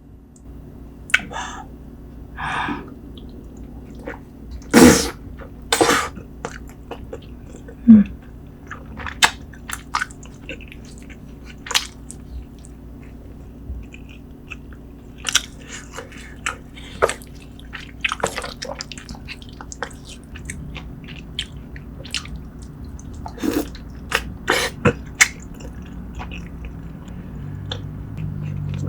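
Close-miked chewing of braised beef short rib meat, with wet mouth smacks and scattered sharp clicks over a faint steady low hum.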